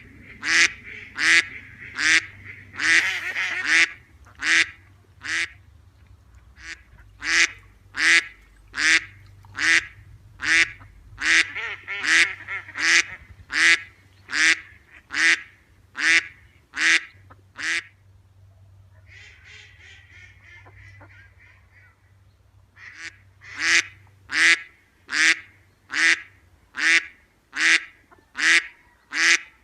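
Duck quacking over and over, about two loud quacks a second. The quacks break off for a few seconds after about 18 s, when only a softer chatter is heard, then start again.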